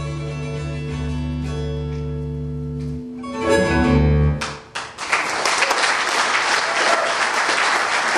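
Acoustic guitar letting a chord ring with deep bass notes, then a last louder chord that dies away about four and a half seconds in. Audience applause breaks out right after and carries on.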